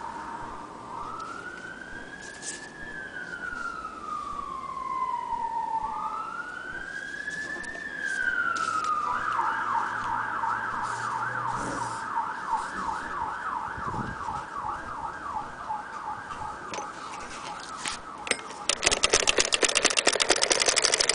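An emergency-vehicle siren sounds a slow rising and falling wail twice, then switches to a fast yelp. Near the end, the hand-cranked Singer Model 12K fiddle-base sewing machine starts stitching with a rapid, louder clatter.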